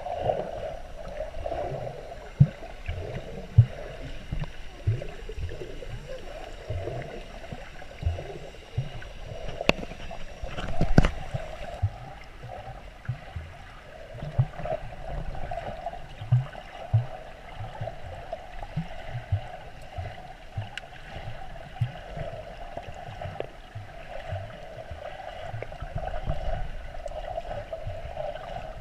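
Muffled water sound picked up by a camera held underwater at the surface: a steady wash of moving water with frequent irregular low thumps and knocks, one louder knock about eleven seconds in.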